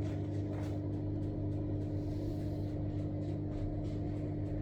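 A steady low hum with one strong held tone, even in level throughout.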